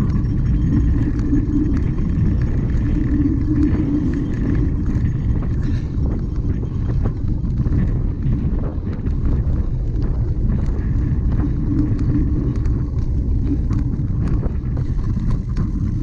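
A cyclocross bike ridden over rough ground: steady wind and rolling noise on the microphone, with frequent rattles and clicks from the bike.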